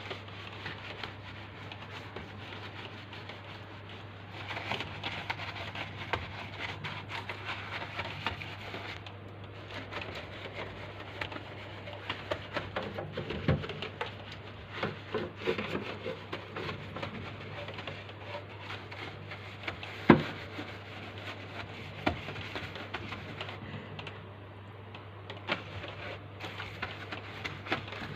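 Soft brush scrubbing the inside of a refrigerator with a rubbing hiss, mixed with small knocks and clatter of handled plastic parts and one sharp knock about twenty seconds in, over a low steady hum.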